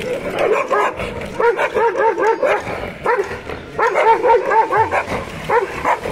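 Stray street dog barking in quick runs of several barks, broken by short pauses, as it squares off against another dog: a stray's warning at a dog on its patch.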